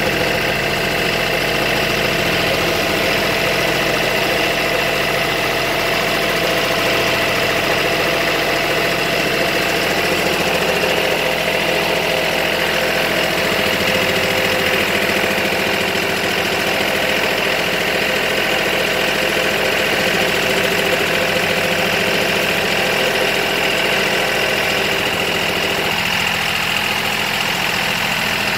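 Tractor engine running steadily under load, driving a chaff cutter that chops rice straw and blows the chaff out: a loud, even machine drone with a constant high whine.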